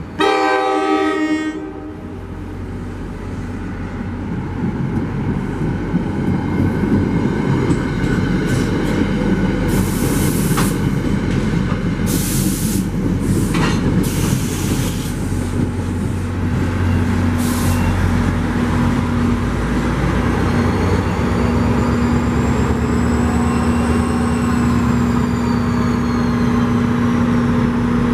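NJ Transit Atlantic City Line push-pull train passing: a horn blast of about a second and a half as it approaches, then the rumble and clatter of the Comet V coaches with several short high wheel squeals. The GP40PH-2B diesel locomotive pushing at the rear passes near the end, with a steady engine drone.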